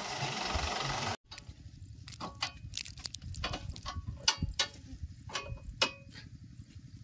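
A steady tractor engine noise that cuts off suddenly about a second in, followed by scattered sharp metallic clicks and knocks, about a dozen, from hands working on the tractor's rotavator hitch, over a faint low rumble.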